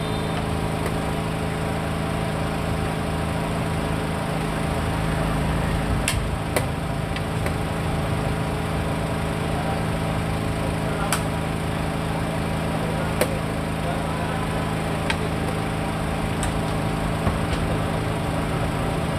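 A steady motor drone with an even hum runs throughout, and a handful of sharp single clicks sound across the middle of it: xiangqi pieces being set down on the wooden board and the chess clock being pressed as moves are made.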